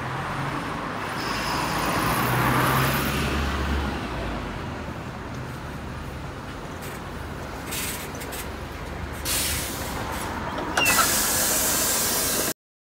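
City bus pulling in at a stop, its diesel engine running with a low rumble that is loudest in the first few seconds. Later come several bursts of compressed-air hiss from the brakes and doors, the last and loudest as the doors open, and then the sound cuts off suddenly.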